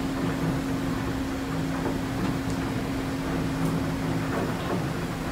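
Steady mechanical rumble and hum of running salt-mine shaft hoist machinery, with a constant tone that drops out about four and a half seconds in.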